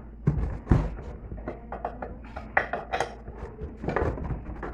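Sharp metallic knocks of hammer blows on a seized part of a washing machine, struck to free it; the two loudest come in the first second, with a few more spread through the rest.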